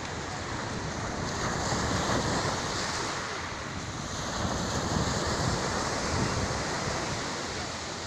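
Small sea waves breaking and washing up a pebble beach, surging twice, about two seconds in and again about five seconds in.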